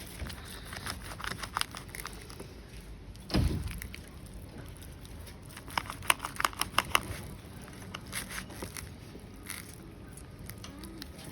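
Handling sounds of food preparation at a cutting board: scattered sharp clicks and knocks, a quick run of clicks about six seconds in, with some crinkling, and one low thump about three seconds in.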